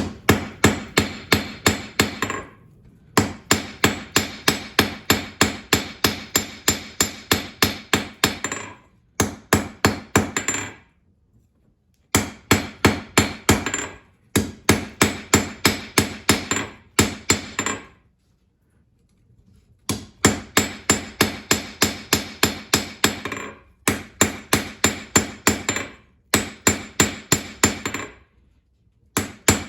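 Hammer blows on a hot steel punch blank of coil spring steel at the anvil, drawing the tip down. The strikes come about three to four a second, each ringing briefly, in runs of several seconds broken by short pauses.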